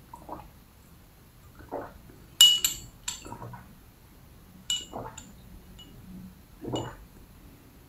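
Drinking through a straw from a glass cup: five swallowing gulps, one every second or two, mixed with sharp, ringing clinks of glass. The loudest clink comes about two and a half seconds in.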